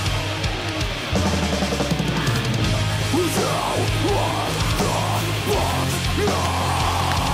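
Heavy metal music, loud and continuous.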